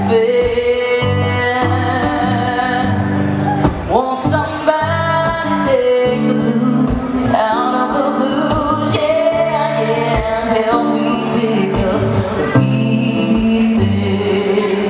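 Woman singing long held notes that slide up and down, with sweeps upward about four and seven seconds in, over acoustic guitar chords.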